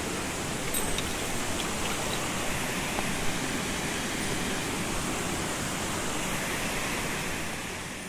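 Steady rush of a mountain stream's flowing water, fading out near the end.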